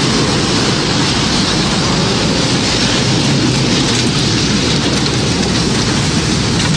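Steady, loud rush of tornado wind and heavy rain, unchanging throughout.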